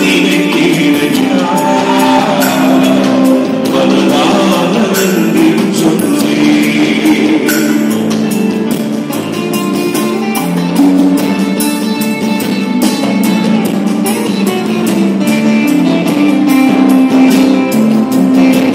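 Live band music: a male singer with drum kit, electric guitar, bass guitar and keyboard, with a steady drum beat. The voice is heard in the first half, then the band plays on without singing.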